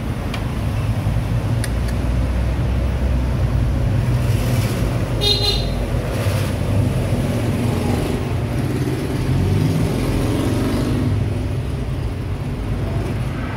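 Steady low rumble of passing road traffic, with a short vehicle horn toot about five seconds in.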